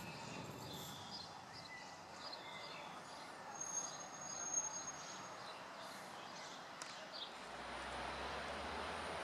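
Quiet outdoor railway-station background: a faint even hiss with scattered short bird chirps. About seven seconds in it switches to a steadier low hum of open trackside ambience.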